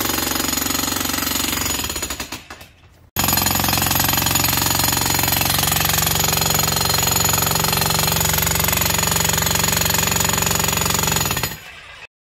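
VEVOR 2200 W electric demolition jackhammer breaking up a concrete slab, a loud rapid pounding. It dies away about two seconds in, starts again abruptly a second later, and runs steadily until it winds down near the end.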